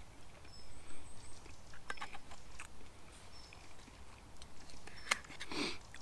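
Knife and fork clicking and scraping against a plate, with a few sharp clinks (the sharpest just after five seconds in), and a man chewing his food.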